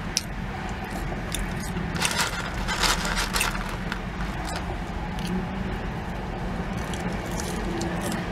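Crinkling and rustling of a paper fry tray and the fries as they are picked up, busiest about two to three and a half seconds in, with mouth sounds of eating. A steady low hum runs underneath inside the car's cabin.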